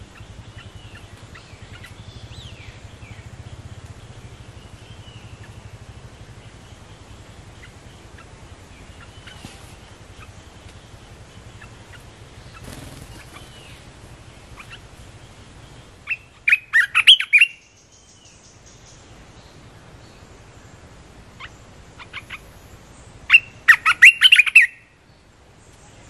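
Bulbuls calling: soft scattered chirps and short whistled notes, then two loud bursts of rapid, harsh chattering calls, one about 16 seconds in and another near the end.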